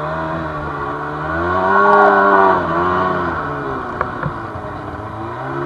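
Snowmobile engine revving hard as the sled pulls away through deep powder after being rocked free. The engine note climbs to a peak about two seconds in, eases off, then rises again near the end.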